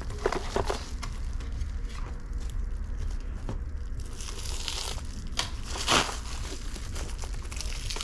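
Clear plastic shrink-wrap being pulled off a small cardboard box, crinkling. It gets louder about halfway through, with one sharper crackle near the end.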